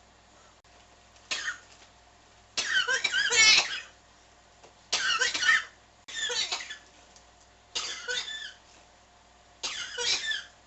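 A person coughing in repeated fits: six bouts a second or two apart, the second one the longest and loudest.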